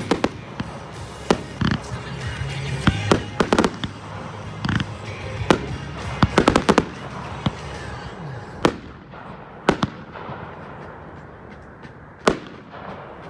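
Fireworks bursting overhead in a string of sharp bangs. A rapid cluster of reports comes about six seconds in, then the bangs thin out to single ones, with one loud bang near the end. Music plays underneath in the first few seconds.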